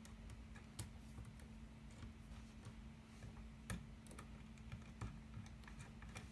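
Faint, scattered clicks and ticks of pliers and copper outlet wires being handled, over a faint steady hum.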